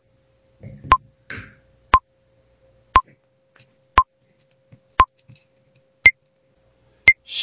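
Ticking timer sound effect, one sharp tick each second, eight in all, each with a short ringing tone; the last two ticks are higher in pitch, like the end of a countdown. A faint steady hum runs underneath, with a few soft handling rustles about a second in.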